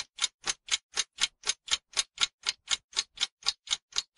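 Clock ticking sound effect, short even ticks at about four a second, counting down the seconds of a countdown timer.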